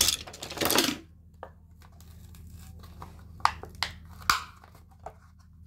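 Crinkling and rustling of toy packaging being handled, loudest about half a second in, followed by a few sharp clicks and short rustles about three and a half to four and a half seconds in, over a steady low hum.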